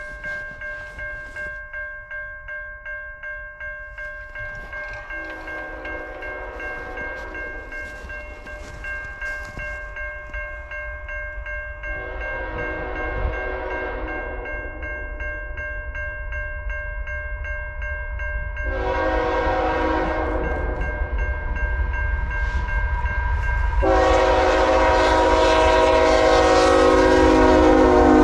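Grade crossing warning bell ringing steadily while an approaching diesel freight locomotive sounds its horn in four long blasts, each louder than the last, the last held as the locomotive arrives close by with a heavy engine rumble.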